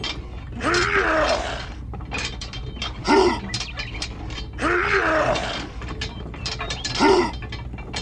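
Small geared electric motor of a toy tractor grinding and clicking as its wheels spin in wet sand. Four loud bursts rise and fall in pitch over a steady low hum.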